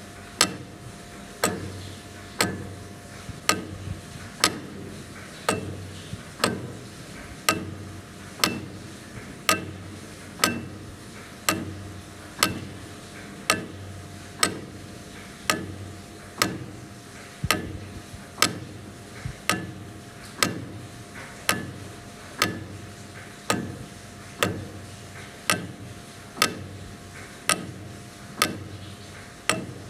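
Large mechanical clock movement with a pendulum ticking steadily, one sharp tick about every second, over a faint steady tone.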